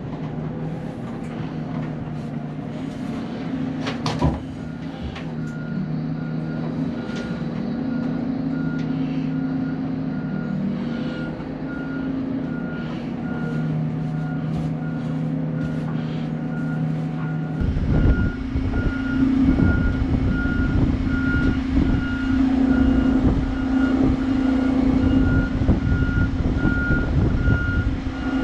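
Oshkosh Striker fire truck reversing, its backup alarm beeping steadily over the diesel engine running. There is a sharp snap about four seconds in, and the engine turns louder and rougher about eighteen seconds in.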